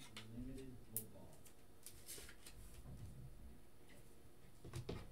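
Faint clicks and light rustling of trading cards in hard plastic holders being handled on a tabletop, a few sharp taps spread through the quiet.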